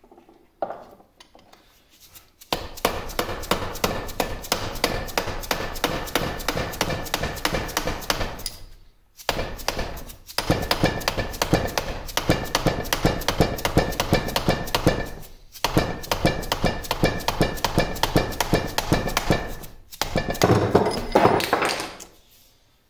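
Rapid, steady hammer blows on a steel punch driving a part out of a cast-iron lathe apron: sharp metal-on-metal knocks with a ringing tone. They come in four long runs with short pauses between them.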